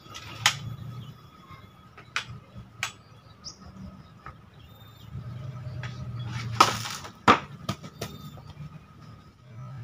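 A homemade katana cutting a section of banana trunk: a sharp knock about half a second in and a few lighter clicks, then a loud swish ending in a sharp chop near the end. A bird chirps briefly twice.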